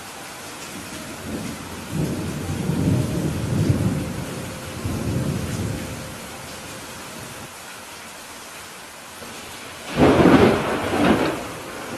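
Steady heavy rain with thunder: a low rolling rumble builds a couple of seconds in and fades by about six seconds. About ten seconds in comes a louder, sharper thunderclap that cracks twice in quick succession.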